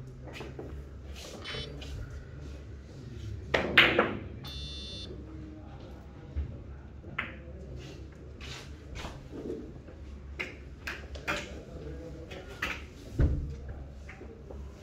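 Billiard balls clicking on a five-pin carom table: a cue strike and a string of ball-on-ball and cushion hits, irregularly spaced, with a loud sharp clack about four seconds in and a heavier knock near the end.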